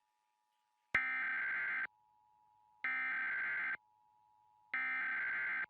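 Emergency Alert System SAME header: three bursts of digital data tones, each just under a second long and about a second apart. These are the coded header that opens an EAS alert, here starting the 2011 national EAS test.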